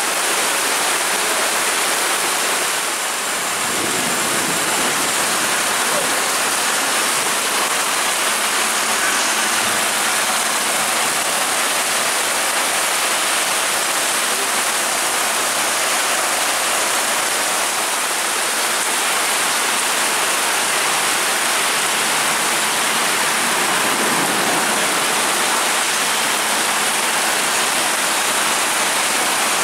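Heavy tropical downpour in a thunderstorm: a dense, steady hiss of rain pouring onto the road and the buses.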